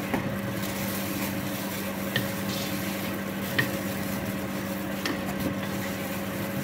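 Wooden spoon stirring meat and potato pieces in an enamel pot while they sizzle, with a few sharp knocks of the spoon against the pot. A steady low hum runs underneath.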